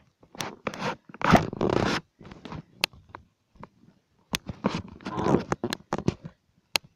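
Handling noise from a phone being moved about: irregular scratchy rubbing against fabric, with sharp clicks and knocks.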